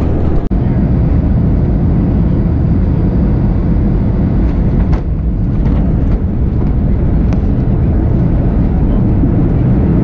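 Jet airliner on the runway heard from inside the cabin: a loud, steady rush of engine and air noise.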